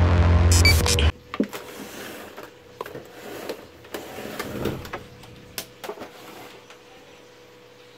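Loud electronic intro music cuts off about a second in, followed by scattered clicks and knocks of a hand handling a CRT television's plastic cabinet over a faint steady hum.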